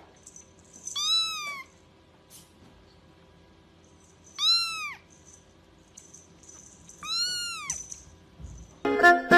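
Kitten mewing three times, short high-pitched mews that rise and fall in pitch, a few seconds apart. Music starts right at the end.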